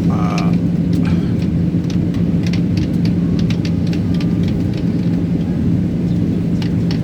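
Airliner cabin noise in flight: a steady, loud, low drone from the engines and airflow, with scattered small clicks and knocks.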